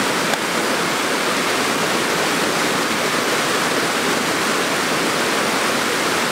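Small stream cascade with water rushing steadily over rocks.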